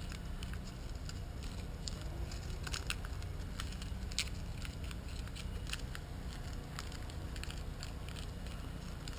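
Small metal washers and lock nuts clicking against each other as they are sorted in the hands: scattered light clinks, the loudest about four seconds in, over a steady low background rumble.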